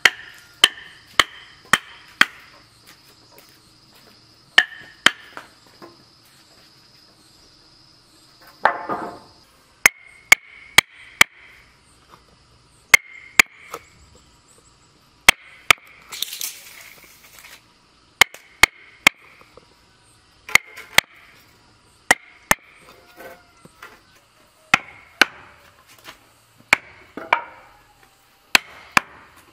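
Steel wood chisel being struck with a block of wood to cut a mortise in a timber beam: sharp, irregular knocks, often in quick runs of two to four with short pauses between.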